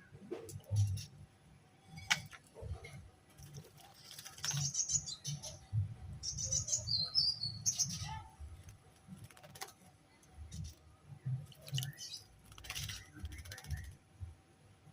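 Small songbird chirping in quick runs of high, rapid notes, loudest through the middle stretch. Scattered sharp clicks and a low rumble are heard around it.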